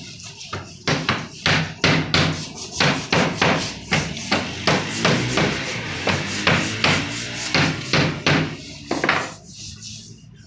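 A fast run of sharp wooden knocks, about three a second, as a cricket bat is struck while being worked on. The knocks stop about nine seconds in.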